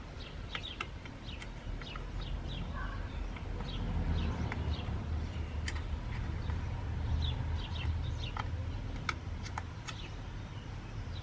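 Small birds chirping in the background over a steady low rumble, with a few sharp light clicks from a small screwdriver driving screws into the sat nav's circuit board and plastic casing.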